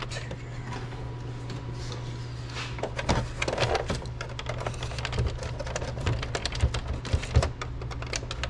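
Irregular plastic clicks, creaks and knocks as the clear lens cover of a 2003–07 GM truck gauge cluster is slid back and pried off its retaining clips, over a steady low hum.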